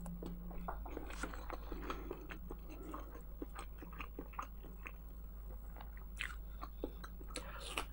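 A person chewing a mouthful of cauliflower and pasta casserole close to the microphone: many small, faint mouth clicks and soft bites, over a steady low hum.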